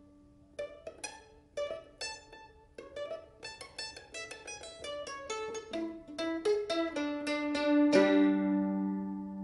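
Solo mandolin playing a piece in a Balinese-inspired style: a few sparse plucked notes, then a quickening run of single notes, building to a loud chord about eight seconds in that rings on.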